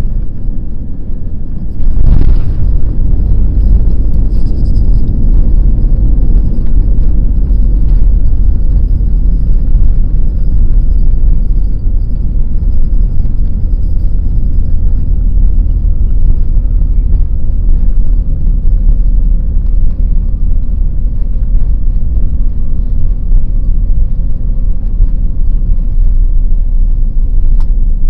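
Airbus A340 airliner landing, heard from inside the cabin: a sudden loud thud about two seconds in, then a heavy steady low rumble of the landing roll on the runway with the ground spoilers raised, and a faint whine slowly falling in pitch as the aircraft slows.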